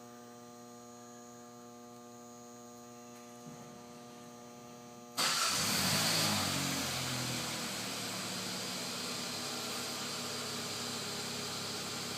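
A 2012 Hyundai Sonata's engine remote-starting from the key fob: a steady hum, then about five seconds in the engine cranks and catches suddenly, revs up briefly and settles to a steady idle.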